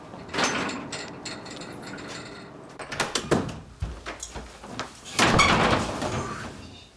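A room door is opened with latch clicks and shut again, with footsteps on the floor and the swish of a heavy coat being pulled off. The loudest moment is a noisy burst about five seconds in.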